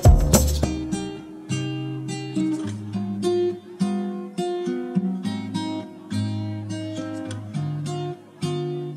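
Background music: an acoustic guitar picking a run of notes, with percussive hits that stop under a second in.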